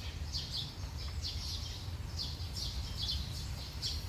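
A small bird chirping over and over, short high chirps about once a second, over a steady low rumble.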